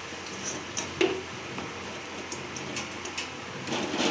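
Metal spoon stirring onions and tomatoes in a metal kadai, with scattered light clicks of the spoon against the pan and a sharper knock about a second in.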